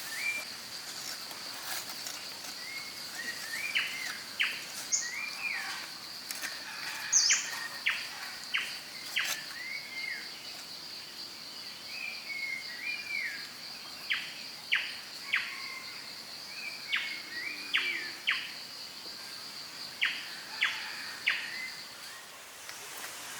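A steady high-pitched insect drone, stopping near the end, with birds chirping in short sharp notes and brief warbled calls throughout.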